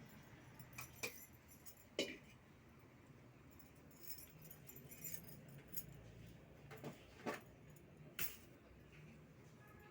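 Faint room tone: a low hum with a few scattered light clicks and knocks, the sharpest about two seconds in.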